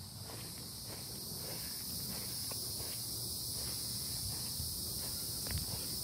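Steady, high-pitched insect chorus of crickets and cicadas, growing slightly louder over the first couple of seconds, with faint footsteps on grass.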